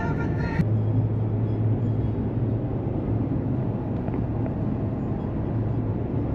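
A vehicle engine running steadily, a low drone under broad road or wind noise, after music cuts off about half a second in.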